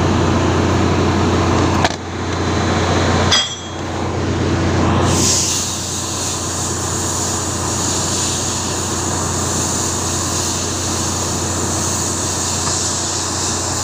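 Steady low machinery drone with a strong hum, which turns into a steadier, hissier noise about five seconds in. A short metallic clink rings out about three and a half seconds in, with a lighter click just before it.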